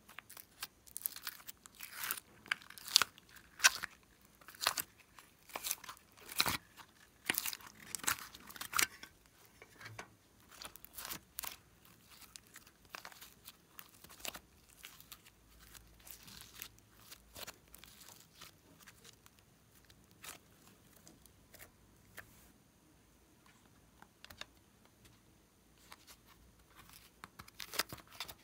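Hands squeezing, folding and pulling apart glossy slime: a run of short sticky crackles and pops, dense and loud for the first several seconds, then sparser and softer.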